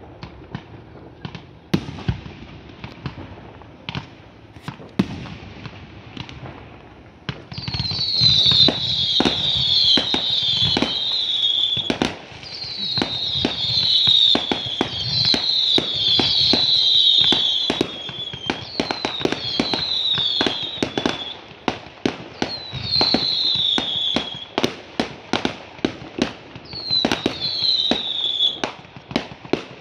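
Fireworks going off: a dense run of sharp bangs and pops, joined about a quarter of the way in by repeated high whistles that each fall slightly in pitch, overlapping one after another in groups.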